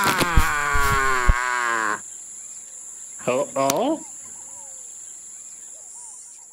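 A cartoon gorilla's loud, long, wavering wail, with a few knocks under it, that cuts off abruptly about two seconds in. Then come two short rising vocal squeaks, over faint cricket chirping.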